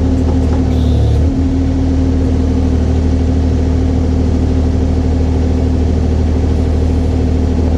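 Kubota 040 compact excavator's diesel engine running steadily, with a slight shift in its low hum about a second in.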